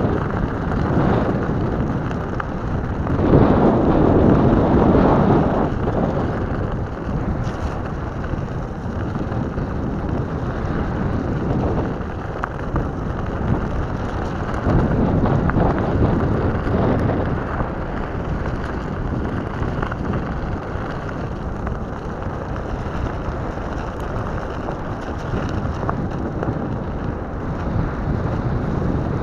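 Rumble and crunch of an off-road electric skateboard's air-filled rubber tyres rolling over wet gravel and muddy dirt, with wind buffeting the microphone. The noise swells louder a few seconds in and again about halfway through.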